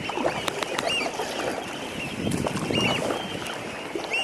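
A flock of birds flying up off the shore, giving many short, high calls, scattered several times a second, over a steady wash of water and wind noise.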